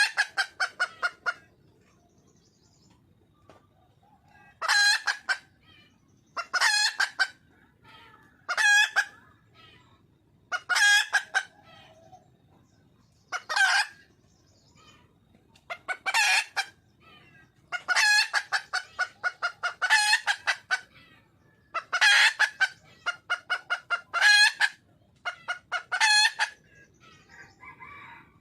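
Wild junglefowl hen calling: about a dozen short bouts of rapid clucking notes, one every two seconds or so, each bout a quick run of sharp pulses. It is the call a hen gives to attract a male.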